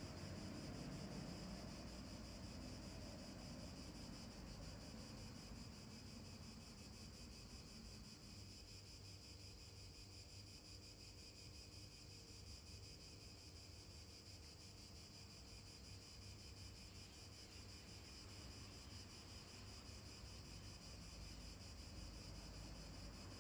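Near silence: faint steady outdoor ambience, an even hiss with a thin high steady tone and no distinct events.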